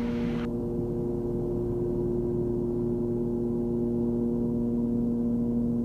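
Cabin drone of a Cessna 340's two propeller engines in steady cruise: a constant hum with several steady tones. A faint hiss cuts off about half a second in.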